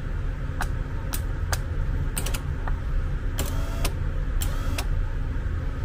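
A repaired remote-controlled unit with small geared motors running under test, working again after its blown fuse was replaced: a steady low hum with a string of sharp clicks as the remote's buttons are pressed and the unit responds, and a short rising whine about halfway through.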